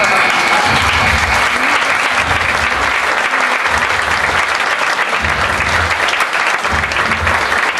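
Audience applauding a performer's bow, dense and steady clapping.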